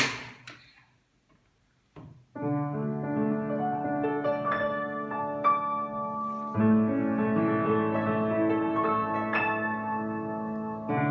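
A thump at the very start, then about two seconds of quiet before an upright piano begins playing a melody over held chords. A fuller chord enters about four seconds later, and another near the end.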